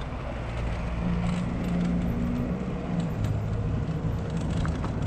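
Bicycle rolling over cobblestones: a continuous rumble and rattle from the tyres and the handlebar bag as it shakes over the bumps. A low steady drone joins about a second in.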